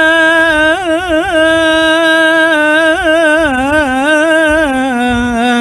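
A man singing the adhan, the Islamic call to prayer, into a microphone in a melismatic style: a long held note, a run of quick ornamental wavers about a second in, then the melody stepping down in pitch about three and a half seconds in.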